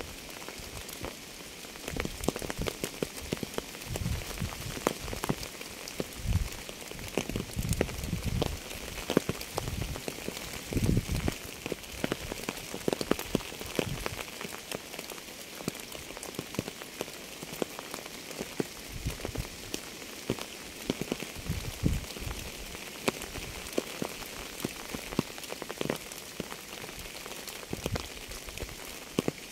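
Rain falling steadily, a continuous patter of many small drop ticks with scattered louder, deeper drop hits.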